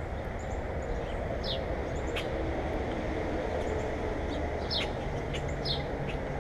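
Small birds giving short, high chirps, a few scattered notes that each sweep quickly downward, over a steady low background rumble.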